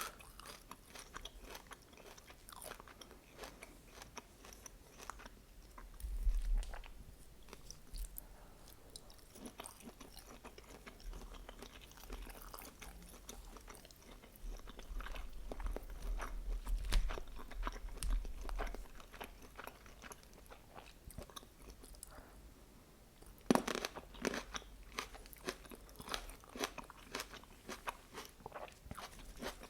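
Close-miked eating: chewing and biting food, with many small crunches and mouth clicks, as chicken lula kebab and vegetables are eaten. A sharper, louder bite comes a little past two-thirds of the way through.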